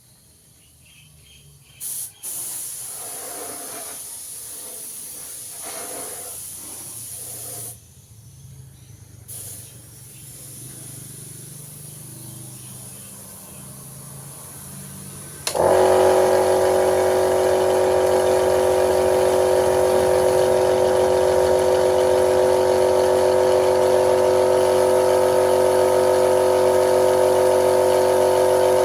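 Paint-spraying equipment: a few seconds of hissing spray, then a motor switches on suddenly about halfway through and runs steadily with a whine.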